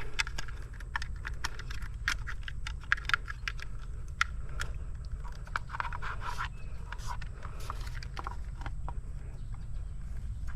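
Irregular light clicks and scrapes of hands handling electrical wires and a plastic light mount as the wires are tucked behind it. A steady low rumble runs underneath.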